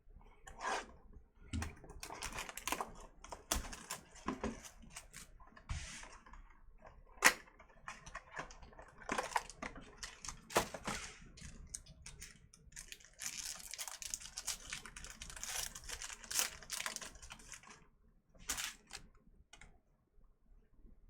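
A sealed baseball card box and its packs being opened by hand: wrappers crinkling and tearing, and cards being handled. It is an irregular run of rustles and sharp clicks, with one louder click about seven seconds in.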